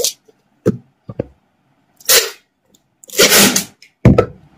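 A small cardboard box being handled and packed on a desk: a few light knocks, a short swish, then a longer louder swish, and a sharp thump just after four seconds as the box is set down.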